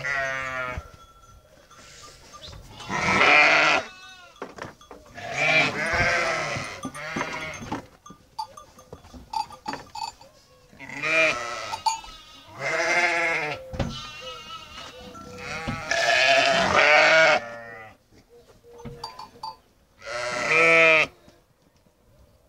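A flock of sheep bleating, several loud, wavering bleats one after another with short pauses between.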